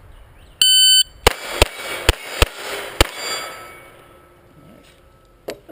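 Shot-timer start beep, followed by five quick .22 rimfire pistol shots from a Ruger 22/45 over about two seconds. The steel targets ring on after the hits.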